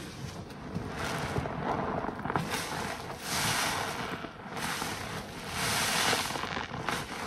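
Soap-soaked car wash waffle sponge squeezed in gloved hands: a wet squishing and hissing of thick suds, louder twice in the second half.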